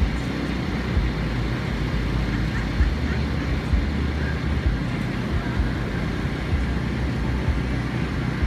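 Fire truck's diesel engine running steadily with a low rumble, with wind buffeting the microphone.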